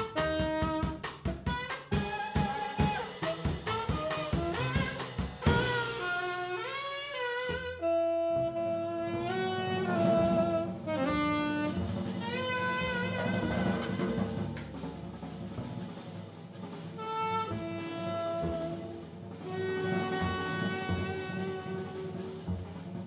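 Jazz trio of tenor saxophone, upright bass and drum kit playing. The saxophone carries a melodic line over walking bass. The drums are busy for the first five seconds or so, then drop back to lighter playing.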